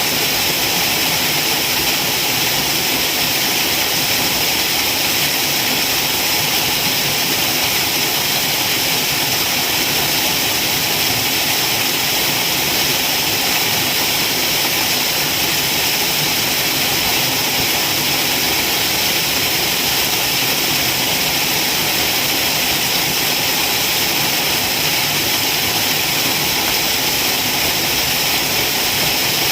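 Waterfall: falling water making a steady, even rushing hiss.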